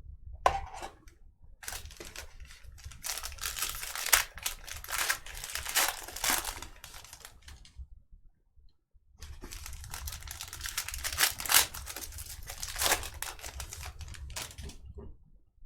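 Sports card packaging being torn open and crinkled: two stretches of crackly tearing and rustling wrapper, with a short pause between them.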